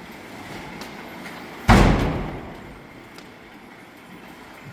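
One heavy thud, like a slam, about two seconds in, with a short booming ring-off, and the start of another just at the end.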